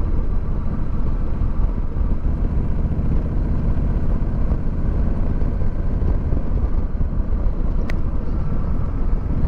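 Honda Rebel 1100's parallel-twin engine running steadily under a rider, with heavy wind noise and a single faint click about eight seconds in.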